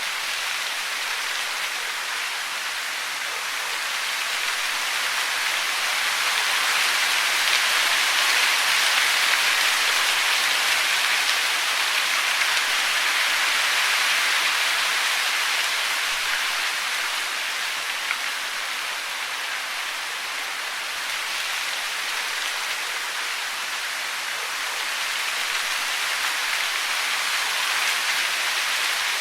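Steady rain falling, a dense even patter that swells a little louder for a while and again near the end.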